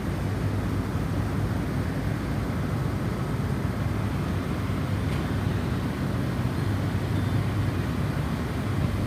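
Steady low rumble of snowstorm wind, an even roar heaviest in the bass with no breaks.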